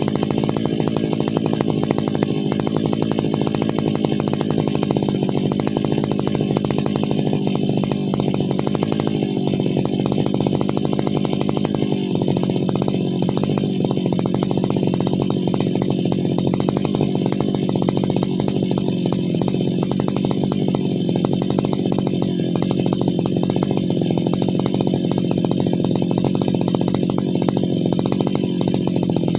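Brushcutter's small petrol engine running steadily at an even speed.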